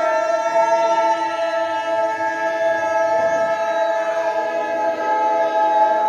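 Voices chanting together in long, steady held notes without instruments, with a slight change of pitch about three seconds in.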